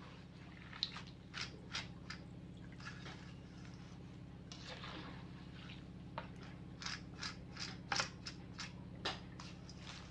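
Wire spider strainer and perforated ladle clinking and scraping against an aluminium wok as crisp fried cassava chips are stirred and scooped out of the oil, with the chips rustling; a steady low hum runs underneath.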